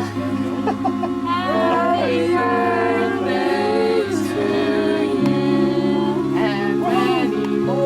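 Background music: a song with layered vocal harmonies sung over long held chords.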